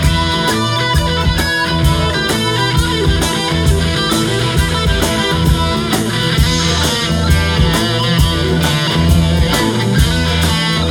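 A live rock band playing electric guitar over a drum kit keeping a steady beat.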